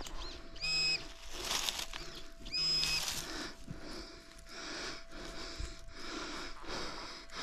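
Metal detector giving two short, flat beeps about two seconds apart over a faint steady hum, followed by soft rhythmic scraping and rustling about twice a second.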